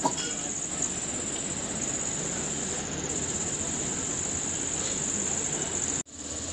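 A steady high-pitched insect chirring over a low background noise. It breaks off for a moment about six seconds in, then resumes.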